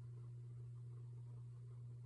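A steady low hum with nothing else happening.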